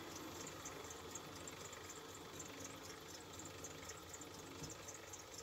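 Lathe running while a rear-toolpost parting tool cuts through a cast iron bar, a faint steady sound without chatter.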